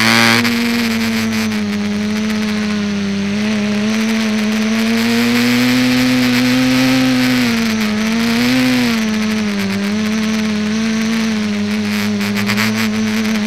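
Electric multirotor's motors and propellers whining steadily, picked up by a camera mounted on the craft. The pitch wavers slightly with throttle, with a brief dip and rise near eight seconds in.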